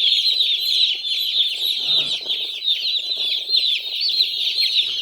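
A large flock of poultry chicks peeping, many short falling high-pitched cheeps overlapping without a break, with a brief lower call about two seconds in.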